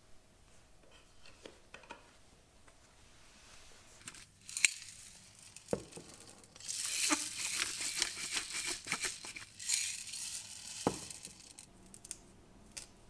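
Kitchen food-preparation handling sounds. A few sharp clicks and knocks come first, then about four seconds of dense crackling, crinkling noise. Another knock follows, and near the end comes the softer sound of kale leaves being torn off their stems by hand.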